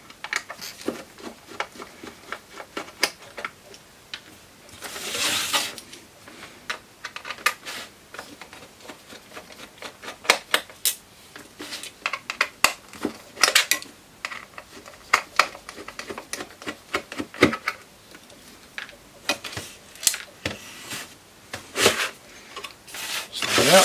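Screws being worked out of the sides of an aluminium Mac Pro optical drive caddy: scattered sharp metallic clicks and ticks, with a short scraping rustle about five seconds in.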